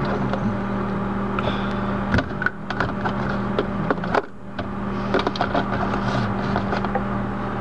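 Plastic food containers knocking and clattering against each other and a refrigerator's shelf as they are handled and slid out, a series of sharp little clicks and taps over a steady low hum.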